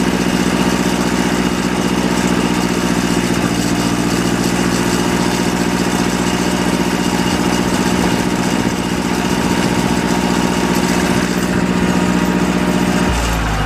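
John Deere 1010 tractor engine running steadily. About 13 seconds in, the sound drops to a lower pitch.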